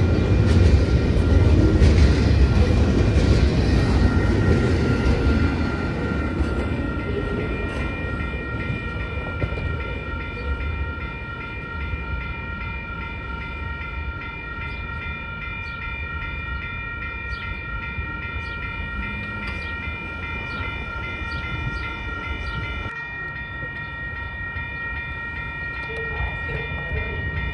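Double-stack intermodal freight train passing close by: a heavy rumble of wheels on rail that fades over the first several seconds as the train pulls away. Steady high-pitched tones ring on underneath, and near the end a low engine sound begins to rise as another train approaches.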